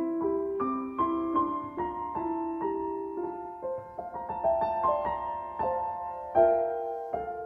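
Background piano music: a gentle melody of single notes over soft chords, with a louder chord struck about six and a half seconds in.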